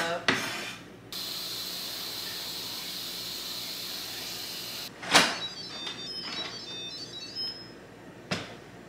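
A couple of knife chops on a wooden cutting board, then a steady high hiss for about four seconds that cuts off abruptly. Then a sharp knock, a scatter of light metallic clinks, and another knock as the metal lid of an Instant Pot electric pressure cooker is handled and lifted.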